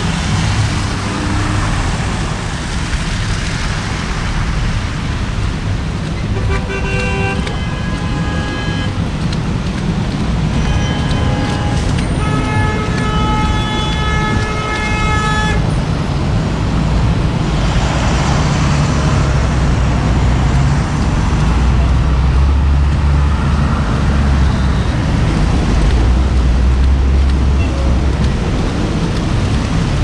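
Steady traffic on wet, slushy streets, with car horns honking: a few short honks, then a long horn blast lasting about three seconds near the middle. A heavier low rumble of passing vehicles builds in the second half.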